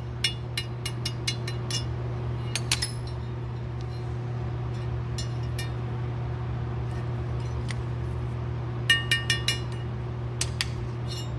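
Light metallic clicks and clinks of a drill bit and small carburetor parts being worked in the carburetor body to push out the jet tubes, in a quick run of taps at first and short clusters near the end, over a steady low hum.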